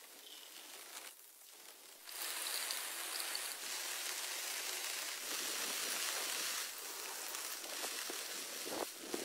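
Steady rain falling on a tarp shelter, a dense run of small drop impacts, getting louder about two seconds in.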